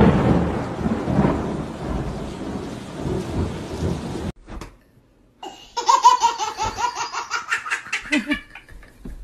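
A long, heavy rumble of thunder that fades over about four seconds and then cuts off. After a brief gap, a baby laughs in a run of short, rhythmic bursts.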